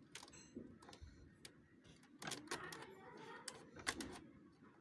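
Irregular light clicks and taps of plastic parts being handled and fitted on a Xerox WorkCentre 5855 document feeder, with one sharper click a little before the end.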